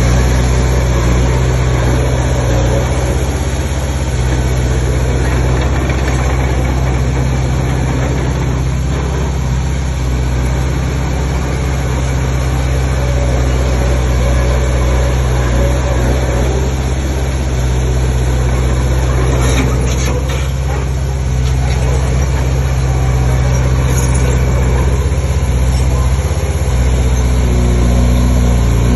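Heavy diesel machinery engine running steadily, with a few short knocks about two-thirds of the way through.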